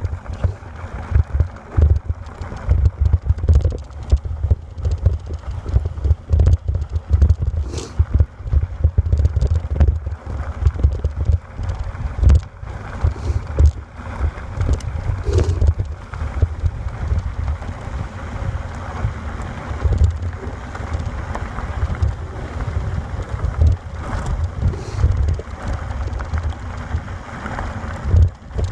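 Wind buffeting the microphone of a camera on a moving bicycle, a heavy low rumble that gusts constantly, with a few short knocks along the way.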